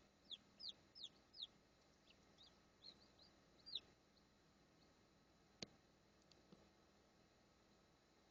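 Faint peeping of a newly hatched chick: a run of short, high peeps, each sliding down in pitch, about ten in the first four seconds. A single sharp click follows about five and a half seconds in.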